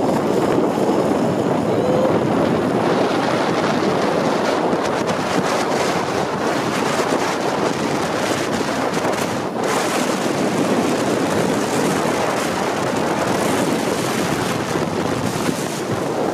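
Steady rushing roar of a zipline ride: wind buffeting the microphone while the trolley runs along the steel cable.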